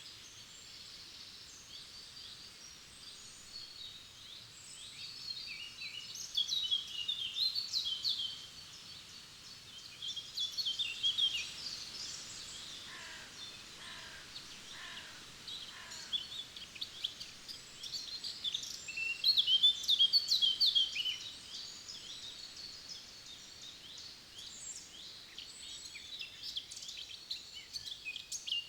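Forest songbirds singing: bursts of high, quick twittering song phrases every few seconds, with a short run of lower, evenly spaced notes in the middle, over a faint steady background hiss.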